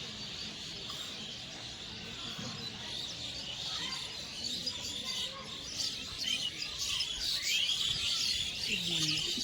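A chorus of small birds chirping and twittering together, growing busier after about four seconds.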